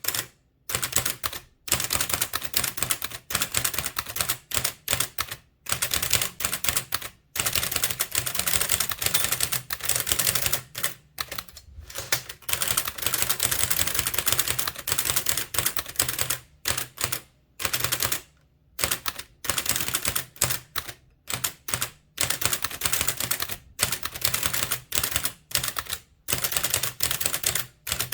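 Blickensderfer typewriter being typed on: rapid runs of sharp mechanical clacks as the type cylinder strikes with each keystroke, several a second, broken by brief pauses. The keys are long-travel and springy, and each must be fully released before the next, which keeps the pace around four to six characters a second.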